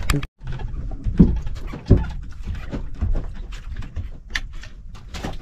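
Irregular knocks and clicks on a wooden boat as the crew works, with two louder thumps about one and two seconds in. The sound cuts out briefly just after the start.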